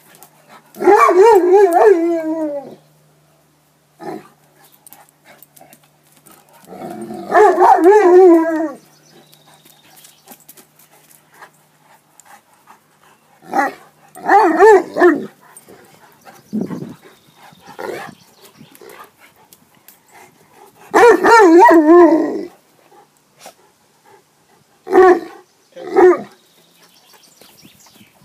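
Leonberger dog howling in long calls of about two seconds each with a wavering pitch, four times, mixed with shorter yelping calls, two of them close together near the end.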